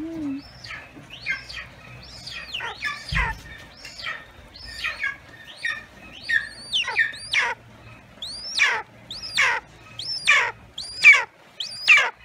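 Young golden eagle, a 3-month-old female, calling over and over in high, piping notes. Each call sweeps sharply down in pitch. The calls come about one or two a second and grow louder and more regular in the second half. A single low thump comes about three seconds in.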